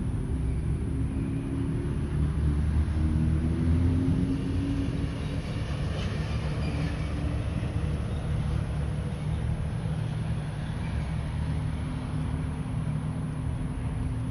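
Motorcycle engines running on the road, with one engine note rising in pitch over the first few seconds as it accelerates, then a steadier engine hum.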